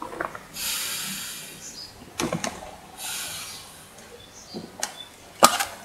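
Breathing on the mouthpiece of a Mares Horizon semi-closed rebreather with the lever set to the loop, to pull a vacuum for its pre-dive leak check: two hissing breaths, about a second in and about three seconds in. Short sharp clicks come just after two seconds and again near the end.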